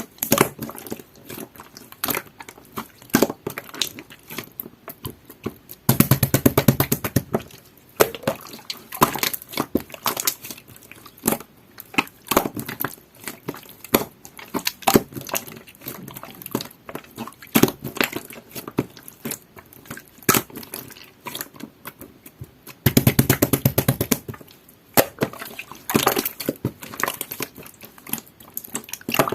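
Clear, jelly-textured slime being worked by hand: a steady run of wet, sticky clicks and small pops, with two louder spells of rapid crackling, about six seconds in and again about twenty-three seconds in.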